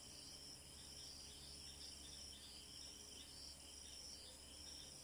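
Near silence: faint steady insect chirring in the high range, over a low hum.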